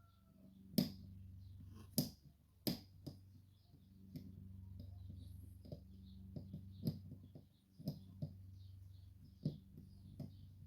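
Small, irregular metallic clicks and taps of a pick and tensioner working the levers of a Sargent & Greenleaf 6804 lever safe lock, the sharpest about one, two and three seconds in, over a steady low hum.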